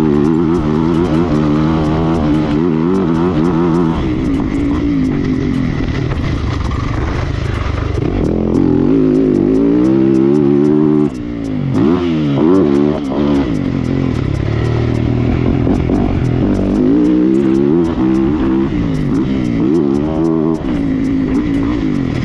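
Yamaha motocross bike's engine revving up and down hard through the gears, the revs repeatedly climbing and dropping as the throttle is worked. About eleven seconds in the throttle is chopped briefly and the sound dips, then the revs climb steeply again.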